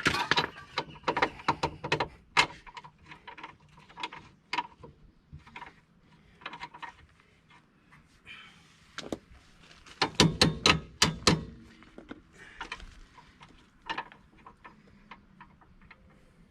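Metal clicks and knocks of tools and hardware while the shock absorber bolt on the rear suspension is being started. A quick run of loud sharp clicks comes about ten seconds in.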